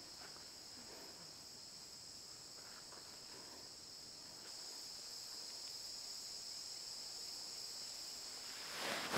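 Insects chirring: a steady, high-pitched, continuous trill, faint.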